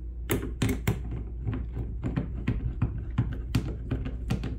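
Small, irregular clicks and taps, several a second, of hands working a cord through a padeye on a plastic kayak deck, with a steady low hum underneath.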